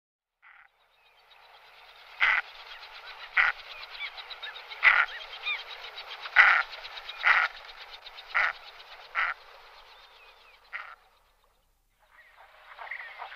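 Common mergansers (goosanders) calling: about eight loud harsh calls roughly a second or so apart, over a steady raspy background of calling, with faint high peeps. The calls stop about eleven seconds in.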